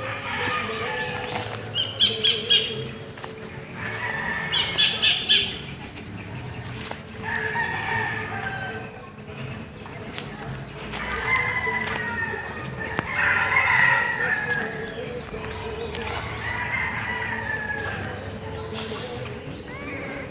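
Chickens calling: two quick runs of sharp calls, then a rooster crowing several times, each crow falling in pitch at the end.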